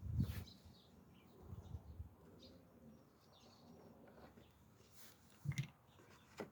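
Faint bird chirps, with a few dull knocks and a couple of sharp clicks.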